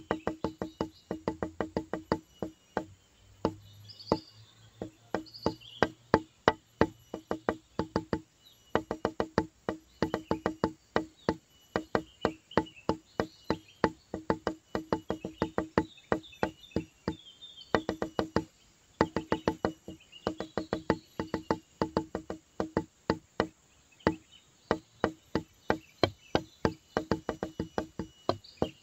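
Background music with a fast, steady clicking beat like wood blocks, and a low held tone that comes and goes in phrases.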